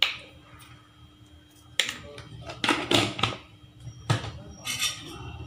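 Kitchen utensils knocking and clinking: a handful of sharp, separate knocks, with a quick cluster about three seconds in.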